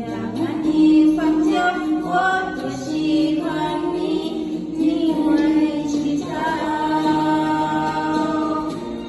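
Music: a song sung by voices, with notes held for a second or more.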